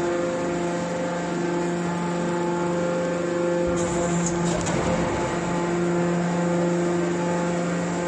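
Hydraulic light steel scrap baler running: a steady hum from its motor-driven hydraulic pump while the ram pushes a compressed bale out. A brief rougher stretch with a low rumble comes about four seconds in.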